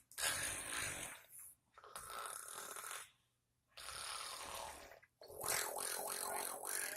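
A woman's mock snoring, done on purpose as a prank: four long snoring breaths, one roughly every one and a half to two seconds, with short pauses between them.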